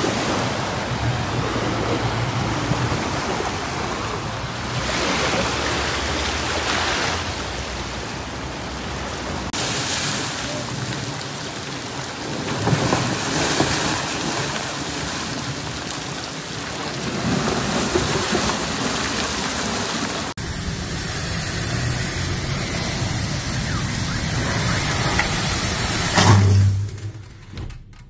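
Heavy rain and running floodwater: a dense, steady hiss that changes abruptly a couple of times as one recording cuts to the next. A brief low thump comes near the end, after which it goes much quieter.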